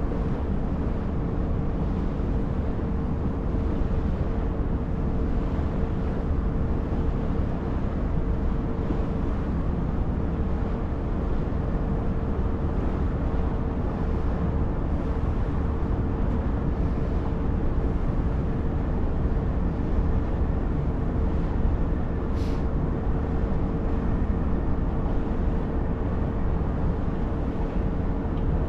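Passenger ferry's engine running steadily: a low drone with a constant hum. A single brief high-pitched tick about 22 seconds in.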